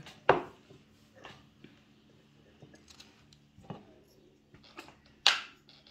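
A few short, sharp knocks and clicks of kitchen things being handled and set down on a wooden worktop: the pastry brush and egg bowl put aside and a spice jar of caraway seeds picked up. Two louder knocks, one just after the start and one near the end, with fainter clicks between.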